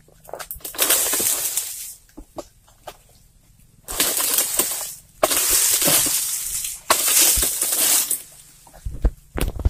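Stiff oil palm fronds being cut from the crown with a long harvesting pole: four rustling, crackling crashes, each about a second long, with sharp knocks between them and a few low thuds near the end.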